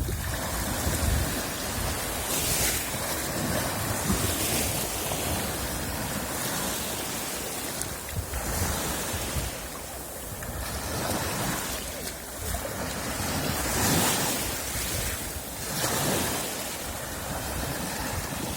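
Waves washing in on the shore, a fresh surge every couple of seconds, with a strong wind buffeting the microphone.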